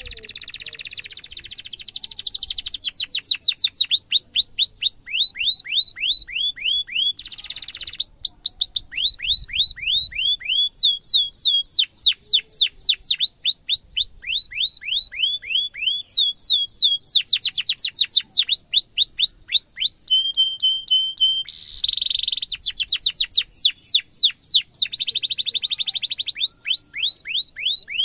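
Domestic canary singing a long, loud song: runs of quick downward-sweeping whistled chirps, about four to five a second, broken by rapid rolling trills and one brief held whistle about two-thirds through.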